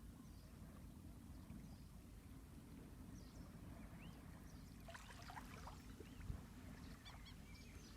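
Faint, steady low rumble of surf on a beach, with a few short, high chirping bird calls in the second half.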